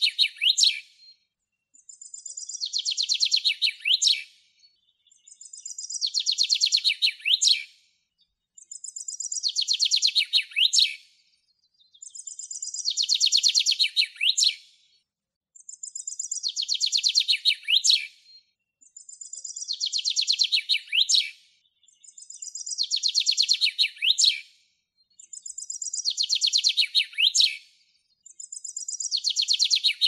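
Male common chaffinch singing its song over and over, about once every three and a half seconds. Each song is a fast run of notes falling in pitch and ending in a quick flourish.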